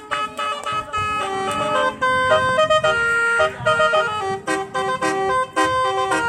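Telolet horn, a set of multi-tone electric horns on a bus or truck, playing a fast tune of short notes that change pitch several times a second, with a few notes held a little longer.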